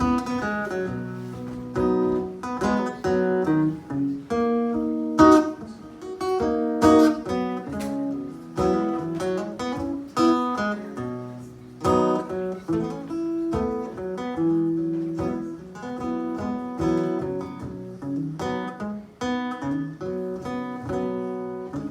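Acoustic guitar played with a run of picked and strummed notes, each ringing out, as the instrumental opening of a folk song.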